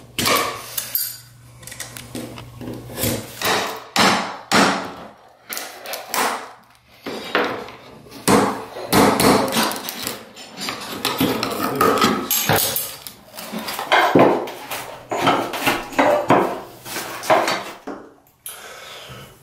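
Repeated sharp knocks and scraping of hand tools working a bathroom baseboard loose: a utility knife scoring the caulk line, then a flat pry bar knocked and levered in behind the baseboard. The strikes come several a second, with a short lull about two thirds of the way in and a quieter stretch near the end.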